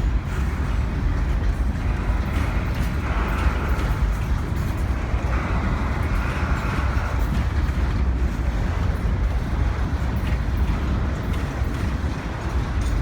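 Freight train rolling by: a steady low rumble of the cars on the rails, with scattered light wheel clicks.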